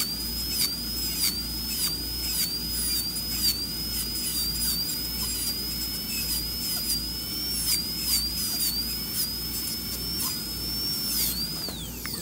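Dental high-speed handpiece whining steadily as its bur cuts a cavity preparation. The pitch dips briefly about every half second as the bur is brushed against the tooth in short, intermittent strokes. Near the end the whine falls in pitch as the handpiece slows.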